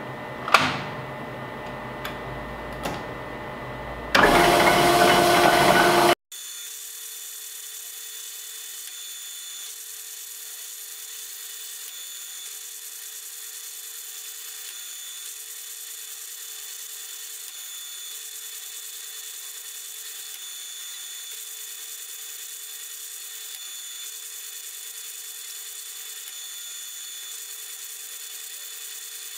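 A few metallic knocks as a stainless steel strip is handled at a powered slip-roll machine, then about two seconds of loud grinding machine noise as the rollers run. After a brief cut-out, a steady machine hum continues to the end.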